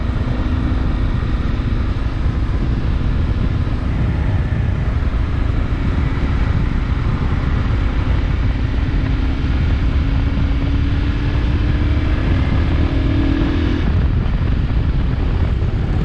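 Zongshen RX1 motorcycle riding at speed: wind rushing over the bike-mounted microphone, with the engine's steady drone underneath. The engine note rises slowly through the second half and drops away about two seconds before the end.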